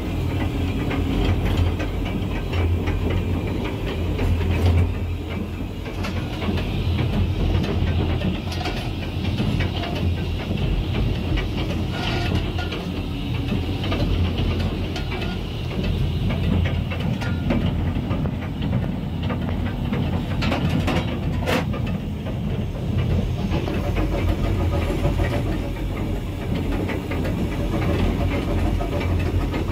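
Andrew Barclay 0-6-0 saddle tank steam locomotive running along the line, heard from its cab: a steady low rumble and clatter of wheels and motion on the track. A single sharp knock a little over twenty seconds in.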